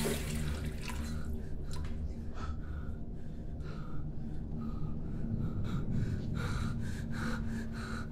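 A man breathing heavily in short, ragged gasps, over a low steady drone.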